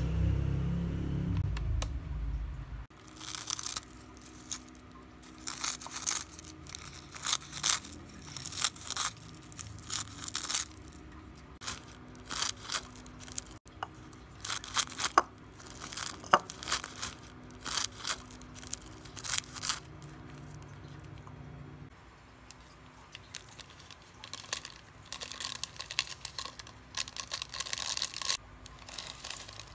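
Crisp roasted seasoned laver (seaweed snack) sheets and their plastic packet crinkling and crunching as they are handled and broken up, in a long run of short crackly bursts. Near the end a seasoning sachet is torn open.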